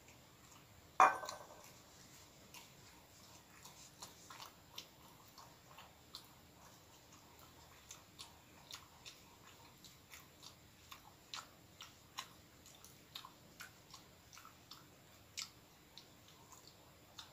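A person chewing soft filled bread with the mouth close to the microphone: many small irregular wet mouth clicks. A single sharp knock about a second in is the loudest sound.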